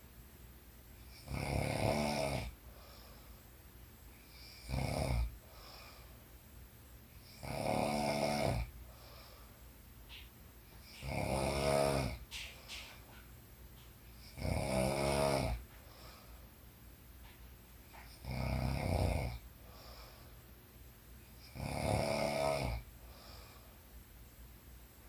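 A sleeping woman snoring: seven snores, each about a second long and pitched, coming in a steady rhythm every three to four seconds.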